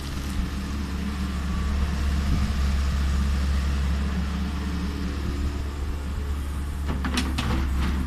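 Kobelco 50 mini excavator's diesel engine running steadily while digging, with a short burst of clattering near the end.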